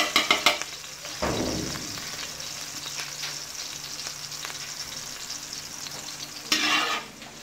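Chopped chilies sizzling in hot oil in a metal wok, with a metal spatula clicking and scraping against the pan several times in the first half second. A dull low bump comes about a second in, and a louder burst of scraping noise near the end.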